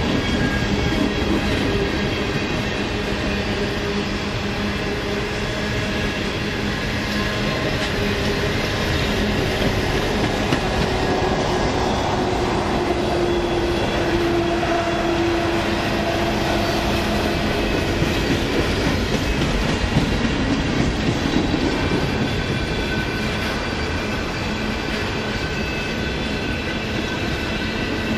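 Coal hopper cars of a long freight train rolling past on the rails: a steady rumble and rattle of wheels on track, with thin ringing tones drifting in and out.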